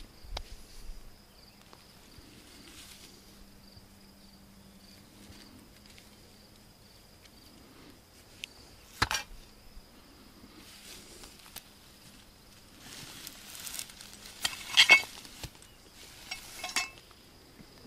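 Pieces of rusty scrap metal clinking and clanking as they are handled and set down on a pile: one sharp clink about nine seconds in, then rustling and louder ringing clanks near the end. A faint, steady, high insect drone runs underneath.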